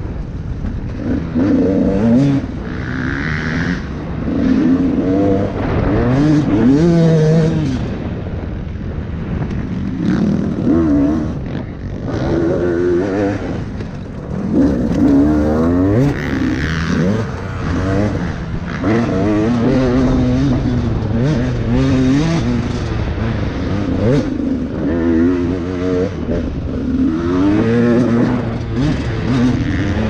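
Dirt bike engine revving up and down over and over as it is ridden off-road, the pitch climbing and falling every second or two with the throttle and gear changes.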